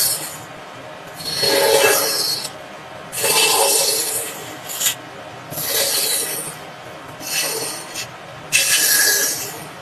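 A hand tool rubbing across wood in long, rasping strokes, about five of them, each lasting around a second with short pauses between.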